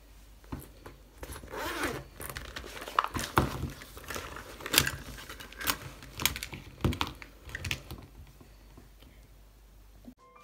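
A zip on a fabric pencil case pulled open, about a second and a half in, then pens, markers and a plastic ruler clicking and clattering against each other and the tabletop as they are pulled and tipped out.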